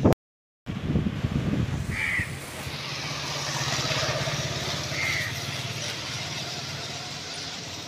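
A motor running with a steady low hum, growing louder to about four seconds in and then easing off, with a bird chirping twice. The audio drops out completely for half a second at the very start.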